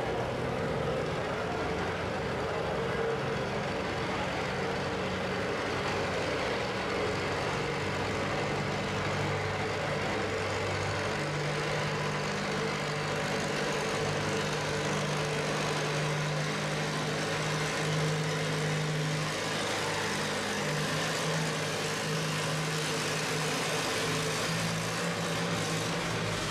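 Tractor engines running at a low, steady idle, with no full-throttle pull; the antique pulling tractor creeps forward while the sled's tow tractor idles behind it.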